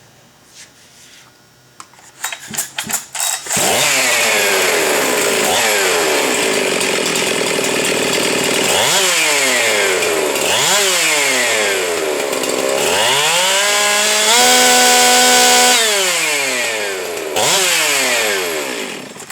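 Husqvarna 372 XPW two-stroke chainsaw, with a ported and decked 75cc cylinder, advanced timing and a dual-port muffler. It starts about three and a half seconds in after several short pulls, then is revved up and dropped back again and again. It holds a steady high rev for a couple of seconds before falling off and being blipped once more near the end.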